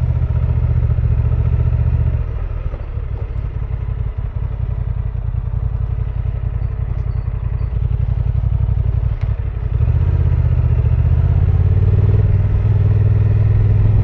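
Honda Transalp 750's parallel-twin engine running as the motorcycle rides along. It gets quieter about two seconds in and louder again about ten seconds in.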